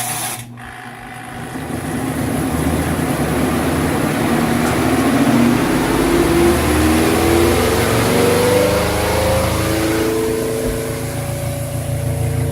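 Giantex twin-tub washer's spin dryer running up to speed: a motor hum and rushing whir whose whine rises steadily in pitch, then levels off near the end.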